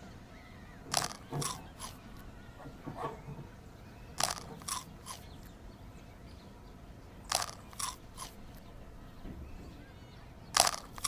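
A cat chewing something crunchy. The crunches come in short groups of two or three, roughly every three seconds.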